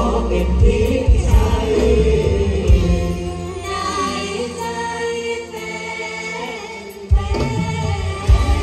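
Thai stage-show music with singing, played loud over a concert sound system. The drum beat drops out a few seconds in, leaving held chords and voice. The full band comes back in hard about seven seconds in.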